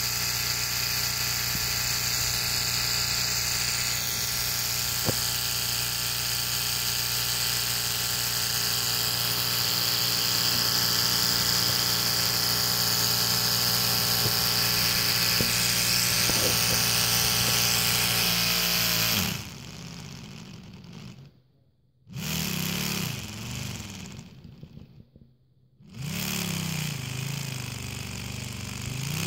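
Small electric motor spinning a Lego V6 engine model: a steady whir for about 19 seconds, then it drops off suddenly and runs unevenly, cutting out twice briefly.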